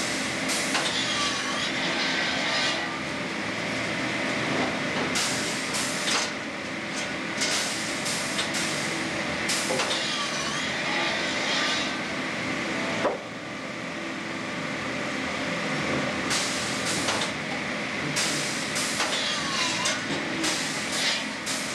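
Pallet mill machinery running steadily, its motor-driven circular saw cutting timber cants in a repeating cycle. Short noisy bursts come every second or two, and a pitch dips and recovers roughly every nine seconds. A sharp knock about thirteen seconds in is followed by a drop in the overall noise.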